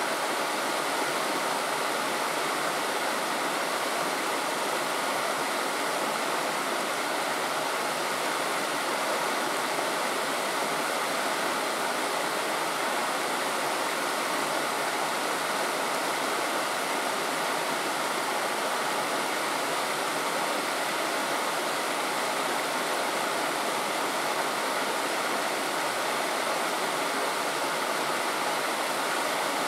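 Steady rushing of flowing water, a stream or river, unchanging throughout.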